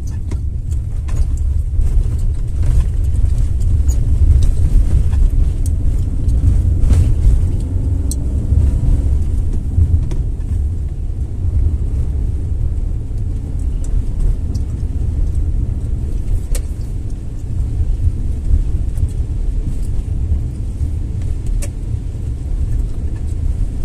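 Car driving on a wet road, heard from inside the cabin: a steady low rumble of engine and tyres, with a few faint clicks.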